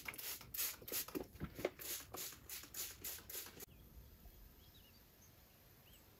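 A broom swishing in quick, even strokes, about three a second, as it sprinkles liquid; the swishing cuts off abruptly a little past halfway, leaving near quiet with a few faint chirps.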